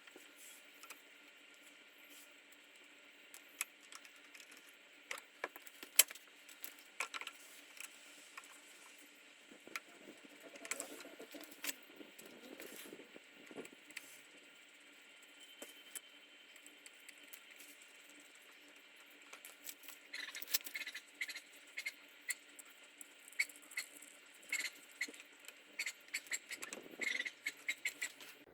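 Scattered small clicks, clinks and light metallic rattles of hand work on a dirt bike while a new battery is fitted, coming thicker and faster near the end, over a faint steady hum.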